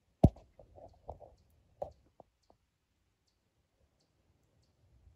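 Footsteps in forest undergrowth: one sharp snap of a stick, then several softer crunches and snaps in the first two seconds. After that only faint high ticks, about one or two a second.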